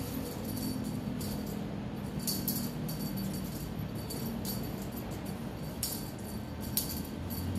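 Small jingle bells on a cat wand toy jingling in short, irregular shakes as the toy is waved.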